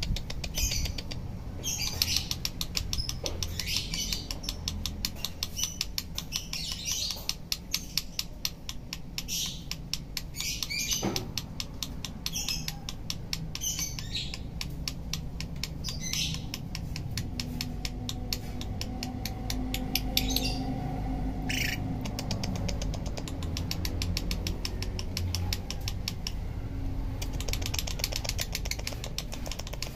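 Lovebird singing in a long, rapid chattering trill made of fast clicks, broken by brighter squawky bursts every second or two, in the low-pitched 'nada minor' style.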